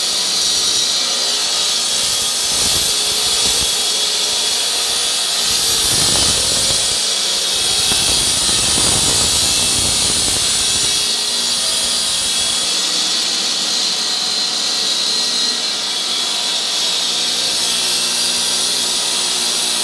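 Three-phase electric walk-behind floor saw cutting 75 mm deep into a concrete floor with a water-cooled diamond blade: a steady, loud, high-pitched running and grinding.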